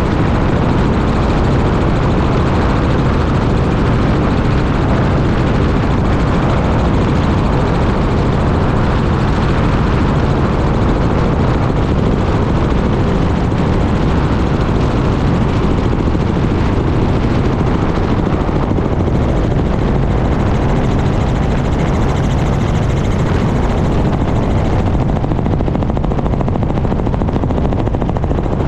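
Small helicopter in steady flight, heard from a camera mounted outside the cabin: a constant low rotor and engine drone mixed with a dense rush of wind noise.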